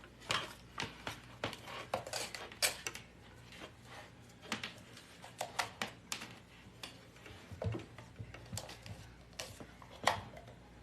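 Irregular light clicks, taps and rustles of hands handling a thermal label printer, opening it and pulling its label paper out.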